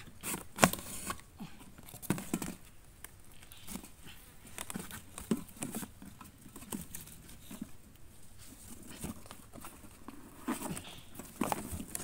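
Irregular light taps, scratches and rustles of a cardboard box pigeon trap being handled, with a few brief low calls among them.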